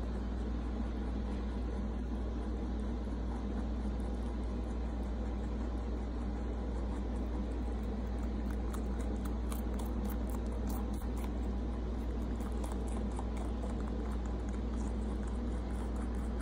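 Mini rex rabbit chewing strips of bell pepper, faint quick crunchy ticks that are clearest in the second half, over a steady low hum.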